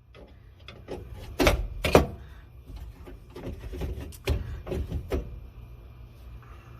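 Hand tools knocking, clicking and scraping at a seized ignition switch in a truck dash as it is forced out, with two loud knocks about a second and a half and two seconds in and another cluster of knocks around four to five seconds in.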